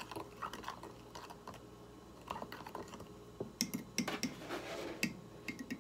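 A metal spoon stirring hot chocolate in a ceramic mug, clinking and scraping against the sides in a run of light clicks. The clicks come quicker and sharper in the second half.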